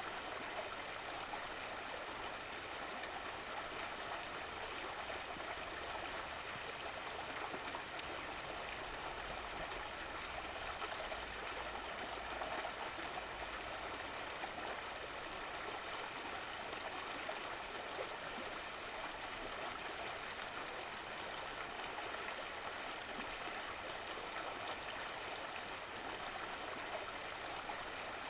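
Running water of a stream: a steady, even rushing and gurgle.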